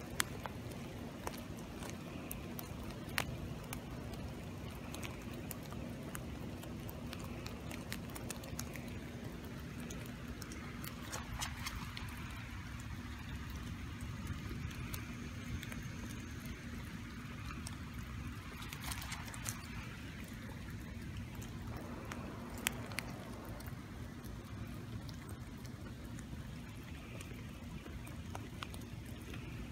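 Steady rain falling on wet leaves and ground, with scattered single drops tapping sharply close by.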